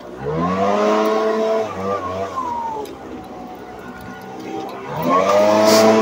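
Echo leaf blower's two-stroke engine revved from idle up to full throttle, with a rush of air. It drops back toward idle about halfway through, then revs up again near the end.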